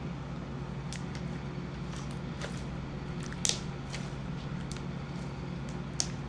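Homemade slime being kneaded and mixed by hand, giving scattered small squishy crackles and clicks, the loudest about three and a half seconds in and another near the end, over a steady low hum.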